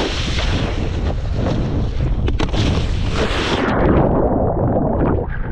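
Wind rushing over the microphone and water spray from a wakeboard riding at speed behind a cable. The high hiss thins out about two-thirds through, and the rush drops away sharply at the very end.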